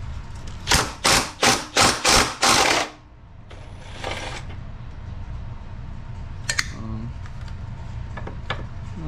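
A ratchet and socket working bolts loose on an engine bracket: a run of about six quick rattling bursts, the last one longer, followed later by a few light clicks.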